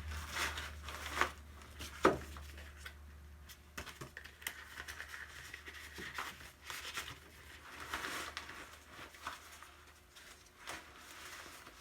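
Rustling and scattered light knocks of equipment being handled and packed into a carrying bag, with two sharper knocks in the first two seconds.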